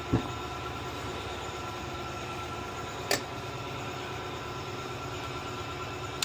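Steady mechanical background hum with a faint steady whine, broken by a short click near the start and one sharp click about three seconds in.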